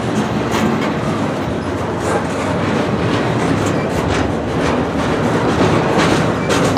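Freight cars rolling past on the rails: a steady rumble of steel wheels with irregular clicks and clacks as the trucks pass over rail joints.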